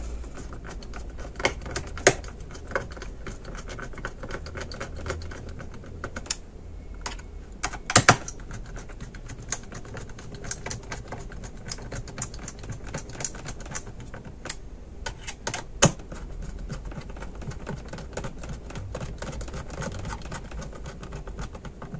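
A small screwdriver turning the screws that fasten a Dell Inspiron N5110's copper heat-pipe cooler back onto its motherboard. It makes rapid, light clicking and scraping, with a few sharper clicks scattered through.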